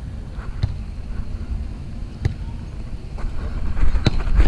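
Mikasa beach volleyball being struck during a rally: three sharp slaps about a second and a half apart, the last the loudest as the ball is played overhead. Steady wind rumbles on the microphone throughout.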